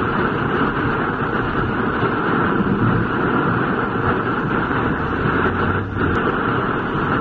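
Heavy wind-driven rain beating on a car's windshield and roof, heard from inside the cabin over the noise of the car driving on a flooded road: a loud, steady rush.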